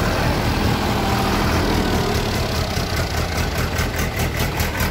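SAME 503 tractor's diesel engine idling steadily. A regular clicking of about five a second comes through more clearly in the second half.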